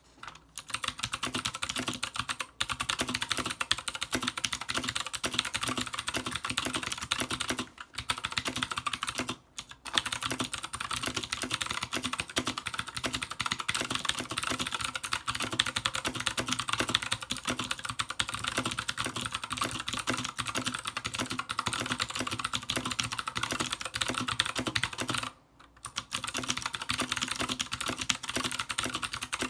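Fast continuous typing on an Anne Pro 60% mechanical keyboard with clicky Gateron Blue switches and double-shot ABS keycaps, a dense rattle of key clicks with a few short pauses.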